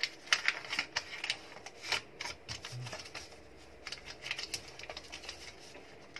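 Wrapping paper rustling and crinkling as it is folded and pressed around a small gift box, in quick, irregular crackles and taps.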